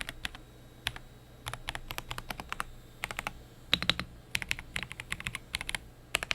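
Typing on a mechanical keyboard with tactile switches: runs of quick key clacks with short pauses between them.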